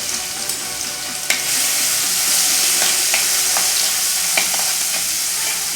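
Crushed garlic cloves sizzling in hot groundnut oil with mustard seeds and urad dal, stirred in the pan. There is a steady frying hiss with a few sharp clicks, and it grows louder after a click a little over a second in.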